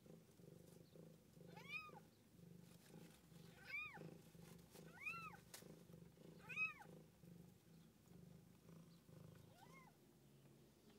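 Newborn kittens mewing: four short, high-pitched mews that rise and fall, about every second and a half to two seconds, then a fainter one near the end, over the mother cat's low purring.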